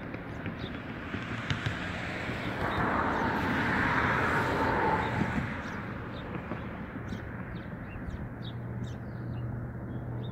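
Outdoor ambience: a broad rushing noise swells and fades over the first half, then small birds chirp repeatedly in the second half over a low steady hum.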